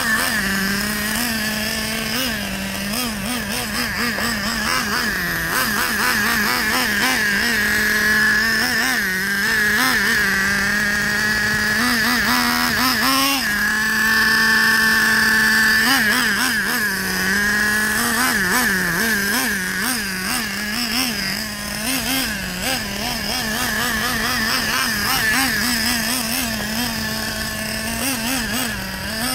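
Traxxas 3.3 nitro engine in an RC monster truck running while the truck is driven, its revs swinging up and down with the throttle during engine break-in. About 13 seconds in it climbs to a steady high rev for a few seconds, then drops back to uneven part-throttle running.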